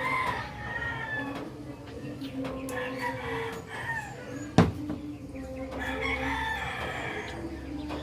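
Rooster crowing again and again, each crow a long held call. A single sharp knock about halfway through is the loudest sound.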